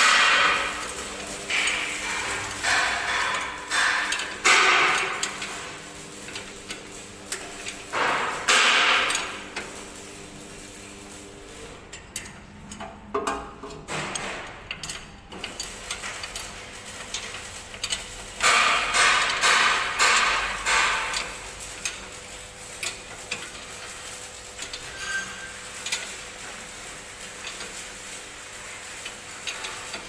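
Metal clinking and scraping of a spanner turning the mounting bolts of a diesel engine on its steel frame, in several short bouts with pauses, the longest about two-thirds of the way through.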